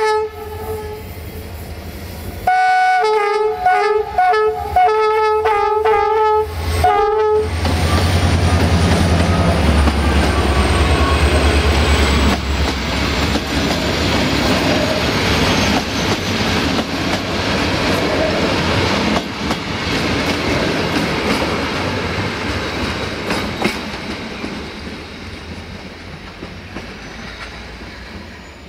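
Electroputere-GM (EGM) diesel-electric locomotive sounding its horn: one short blast, then about two seconds later a rapid string of short toots lasting some five seconds. The locomotive's diesel engine then passes close, loudest just after the horn. The passenger coaches follow, rolling by with clicks of wheels over rail joints and fading away.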